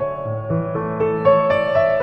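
Slow piano music: a melody of single struck notes over held low bass notes.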